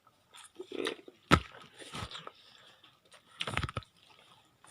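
A child eating, with chewing and crunching and a few sharp clicks.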